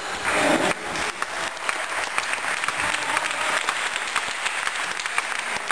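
Spectators applauding, many hands clapping, starting about a second in and going on steadily.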